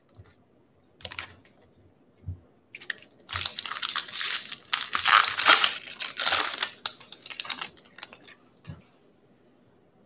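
A 2020 Bowman baseball card pack's wrapper being torn open and crinkled by hand: a few seconds of loud crinkling and tearing, with light handling clicks before and after.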